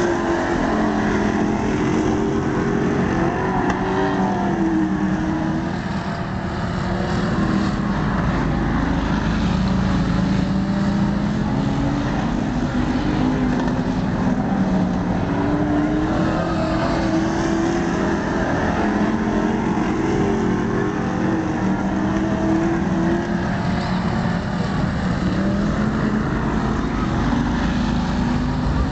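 Several dirt-track stock cars racing laps, their engines running loud, the pitch rising and falling as the cars accelerate and back off.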